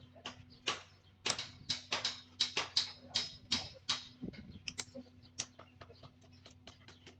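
A run of short, sharp clicks and scrapes, about two a second and louder for the first few seconds, then fainter and quicker.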